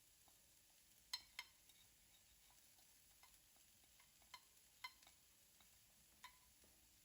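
Near silence with a few faint, light clicks: two close together about a second in, then a handful more spread through the rest.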